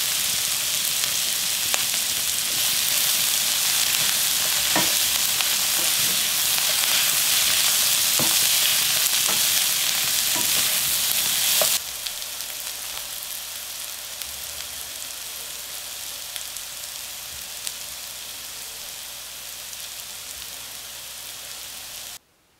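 Shredded bellflower roots sizzling as they stir-fry in a frying pan, with scattered light clicks of a utensil stirring against the pan. About twelve seconds in, the sizzle drops to a quieter level, and it stops just before the end.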